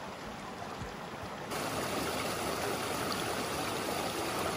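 Running water of a small woodland stream cascading over rocks: a steady rush that gets louder about a second and a half in.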